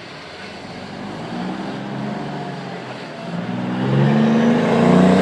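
Car engine revving and accelerating, its pitch climbing in repeated rises and growing louder toward the end.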